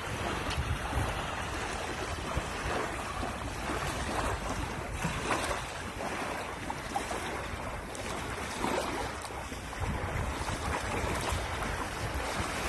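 Wind buffeting the microphone over the wash of shallow sea water, with irregular splashing of a person wading and running through the shallows.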